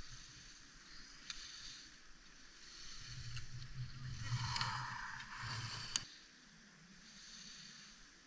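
A slalom skier's skis carving and scraping across the snow while passing close by: a hiss that swells to a peak about halfway through and then fades, with a low rumble coming and going under it. A single sharp click sounds about six seconds in.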